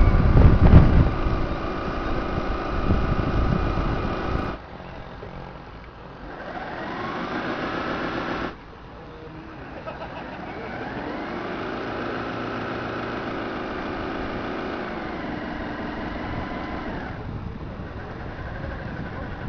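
Model harbour tug's Voith Schneider drive motors running, with a whine that rises, holds and falls in pitch. Wind rumbles on the microphone in the first few seconds. The sound changes abruptly about four and eight seconds in.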